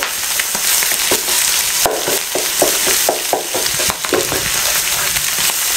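Diced carrots, capsicum and scrambled egg sizzling in hot oil in a frying pan, while a wooden spatula stirs them, scraping against the pan about three times a second.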